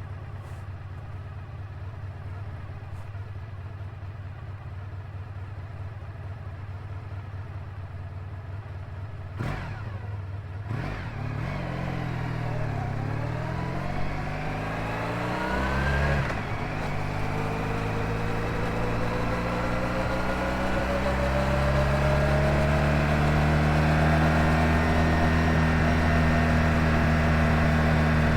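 1986 Honda VF1000R's 998 cc V4 engine on the road. It runs steadily at first, with two sharp clicks about ten seconds in. The engine note then swings up and down, and in the last ten seconds climbs steadily in pitch and gets louder as the bike accelerates.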